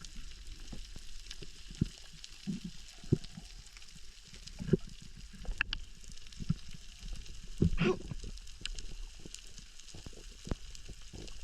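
Underwater crackle of snapping shrimp on a coral reef: a dense patter of tiny clicks over a steady hiss, with a few louder knocks.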